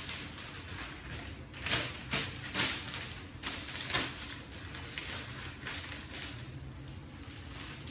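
Black florist wrapping paper rustling and crackling as a sheet is handled and folded, with a handful of sharper crinkles about two to four seconds in.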